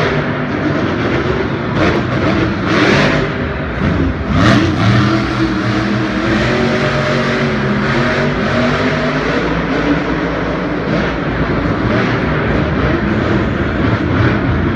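Monster truck engine running loud and revving, its pitch rising and falling in surges during the first few seconds, then running on more steadily.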